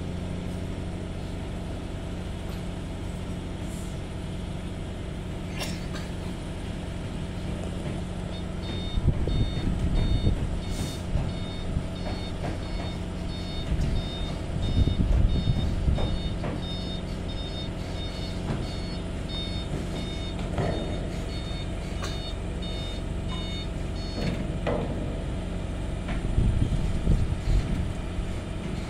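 Heavy excavator's diesel engine running steadily, swelling louder several times as it works under load. From about eight seconds in until about twenty-four seconds, a backup alarm beeps rapidly and high-pitched over it.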